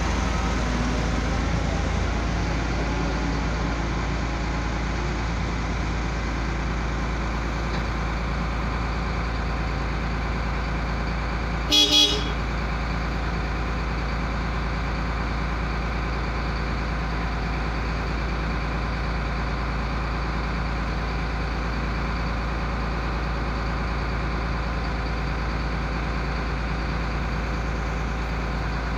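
Wheel loader's diesel engine running steadily close by, a low, even drone. About twelve seconds in, a horn gives two short toots in quick succession.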